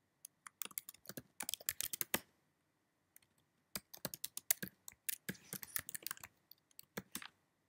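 Typing on a computer keyboard: a quick run of keystrokes, a pause of about a second and a half, then a second run of keystrokes as a command is typed out.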